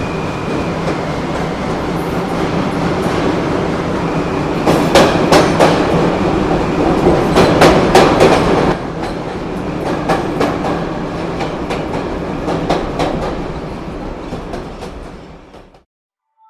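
Train running on rails, its wheels clacking over rail joints, loudest in the middle and fading away near the end.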